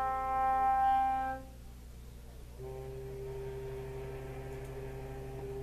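Recorded foghorn blasts played through the Homedics Sound Spa clock radio's speaker: a higher steady horn tone cuts off about a second and a half in, and after a short gap a lower horn starts and holds.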